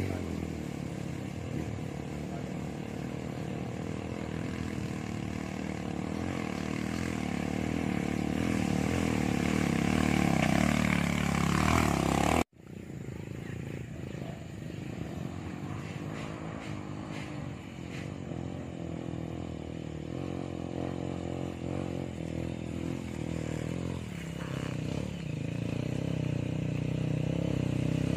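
Vehicle engine running under load, its pitch shifting and growing louder over the first twelve seconds. The sound cuts out abruptly about halfway through, then resumes with the engine building again toward the end.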